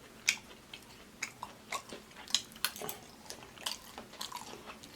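Close-miked chewing and lip-smacking while eating oxtails: an irregular string of short, sharp mouth clicks and smacks, a few each second.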